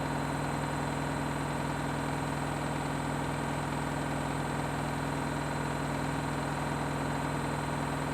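Washing machine on a 1600 rpm spin cycle, its drum spinning at a steady speed: a constant motor hum with a high, even whine that does not change.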